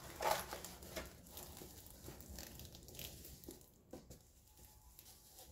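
Faint rustling and crinkling of a plastic-covered diamond painting canvas being rolled up by hand, with a few light taps.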